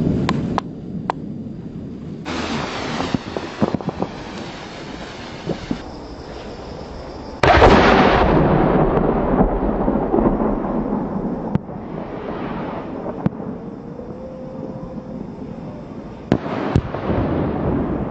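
Large 200 mm aerial firework shells going off. A rolling rumble fades, with a few sharp cracks. About seven seconds in comes a sudden heavy boom with a long rumbling decay, and a second loud report follows near the end.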